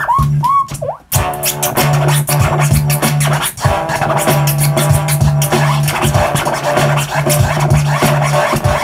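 Vinyl record scratched by hand on a DJ turntable over a beat. Quick rising and falling squeals come in the first second, then a brief drop-out, then the beat returns with fast, dense scratch cuts.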